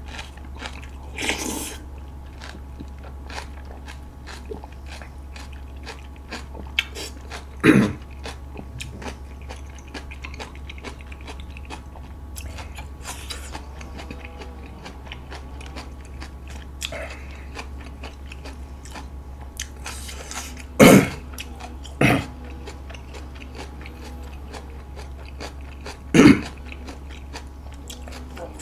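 Close-miked eating: noodle slurping and chewing of budae jjigae. Then a few sharp coughs from about two-thirds of the way through, from choking on chili powder from kimchi. A steady low hum runs underneath.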